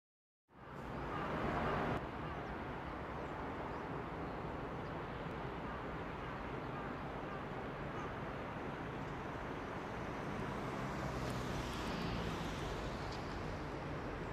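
JR Freight EF66 electric locomotive and its container freight train running past at a distance, a steady running noise that fades in about half a second in.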